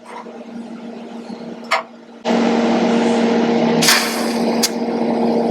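A TIG welding arc strikes a little over two seconds in and runs with a steady electrical buzz and hiss, with a couple of short sharp cracks near the four-second mark.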